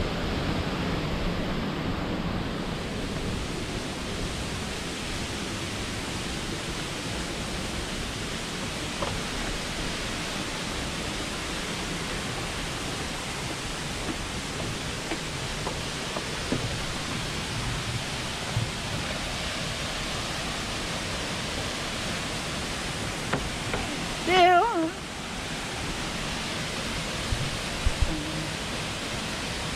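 Steady rush of falling water, an even hiss without rhythm. A brief wavering call, likely a voice, cuts through about 24 seconds in.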